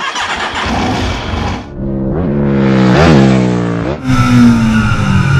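An engine revving as a sound effect: a noisy rush, then the pitch climbs to a peak about three seconds in and falls back. Near the end a lower drone sinks in pitch.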